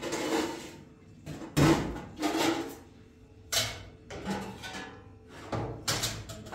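Kitchen clatter while greens are being prepared: a run of irregular knocks and bumps, about eight in a few seconds, with the loudest near the two-second mark.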